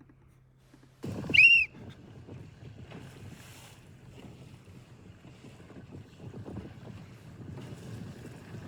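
Wind buffeting the microphone over water rushing around a boat under way, cutting in suddenly about a second in. Right at the start comes a brief, loud, high-pitched squeal that rises and falls in pitch.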